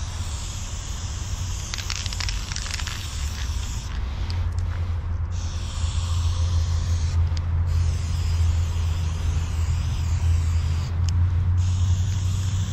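Aerosol spray-paint can hissing in long sprays, with short breaks about four, seven and eleven seconds in, over a steady low rumble.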